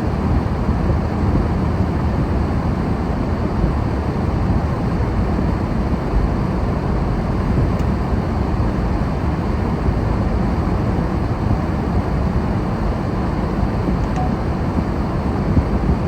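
Snowstorm wind blowing across the microphone: a steady, dense rush of noise, heaviest in the low end and flickering constantly.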